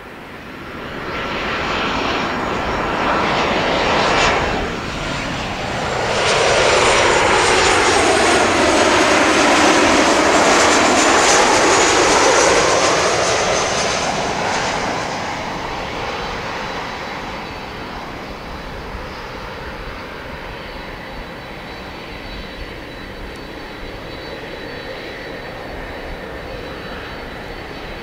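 Boeing 737-800's CFM56-7B jet engines on landing approach, passing close overhead. The sound swells over the first few seconds and is loudest from about six to fifteen seconds in, a rushing engine noise with a thin high whine and a sweeping, phasing sound as the jet goes by. It then fades to a steadier, lower engine noise as the aircraft moves off onto the runway.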